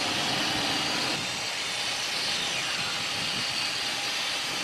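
Steady rushing noise in the cockpit of a Cessna Citation XLS climbing out just after takeoff: its twin turbofans at takeoff power plus airflow over the cockpit. A faint tone falls in pitch about two seconds in.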